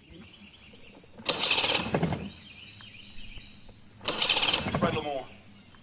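Fishing reel drag ratcheting out in two bursts of about a second each, a couple of seconds apart. A brief falling call is heard near the end of the second burst.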